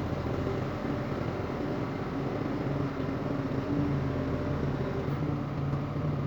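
Farm tractor's diesel engine running steadily at a constant speed, a low, even engine hum.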